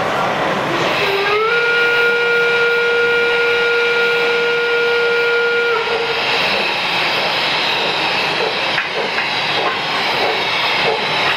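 Gauge 1 model steam locomotive's whistle blowing one steady blast of about four seconds, sliding up slightly in pitch as it starts. After it, steam hisses and the model clatters along the track.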